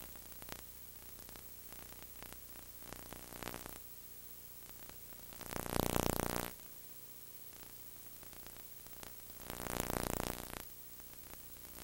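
Synthesizer music rising and fading in three long, soft swells, each about a second, over a steady low hum.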